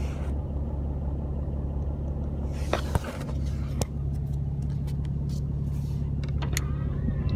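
6.7-litre Cummins inline-six turbo-diesel idling, a steady low drone heard from inside the truck's cab, with a few light clicks.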